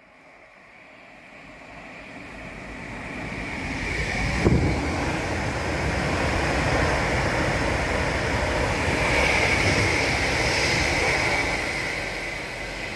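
A Pendolino electric express train passing at speed beneath a bridge. Its rushing wheel-and-rail noise builds over about four seconds, peaks sharply as the front passes underneath, holds steady while the carriages go by, then starts to fade near the end.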